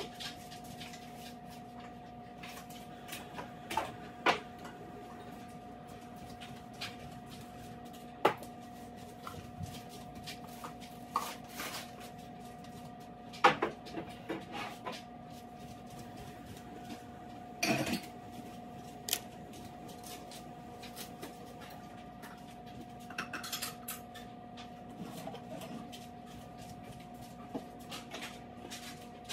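Scattered knocks, clinks and clatter of dishes and household items being handled and set down during kitchen cleaning, over a steady low electrical hum.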